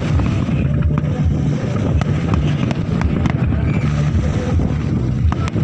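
Wind on the microphone as a steady low rumble, with faint scattered crackles over it.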